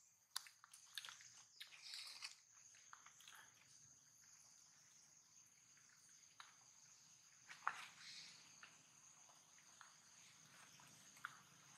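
Near silence with a faint, steady, high-pitched insect drone and a few scattered soft clicks and rustles, the sharpest near the start and about 8 seconds in.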